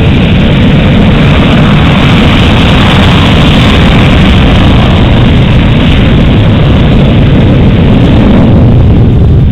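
Fighter jet's engines running at high power on the runway, loud and steady, so loud that the recording stays pinned near full scale.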